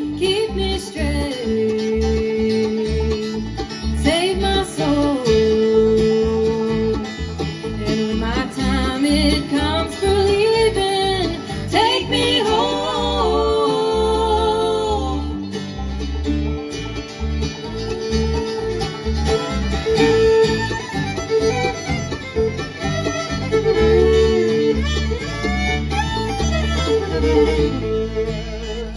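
Bluegrass band playing an instrumental break with no singing: fiddle, five-string banjo, acoustic guitar, mandolin and bass.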